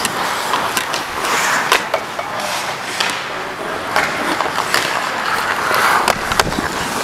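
Ice hockey skate blades scraping and carving on rink ice in repeated swells, with a number of short sharp clacks on top.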